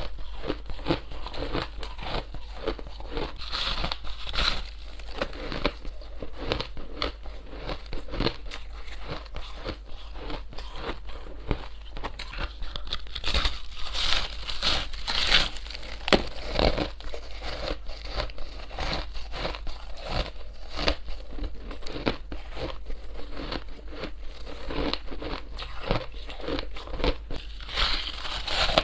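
Close-miked crunching of packed shaved ice: bites into a frozen block and chewing, a dense run of crisp crackles and crunches. The crunching grows louder and sharper in a stretch around the middle.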